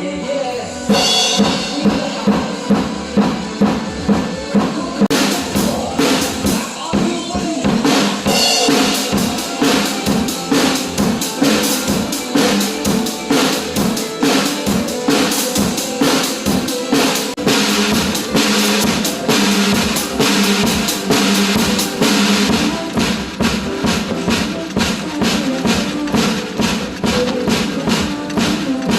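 Acoustic drum kit played along to a pop song backing track, with kick and snare keeping a steady beat and cymbal crashes about a second in and again about eight seconds in.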